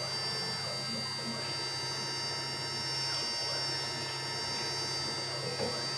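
Small CNC router running a job, with a steady high whine from its 800 W spindle on a variable-frequency drive over a low hum.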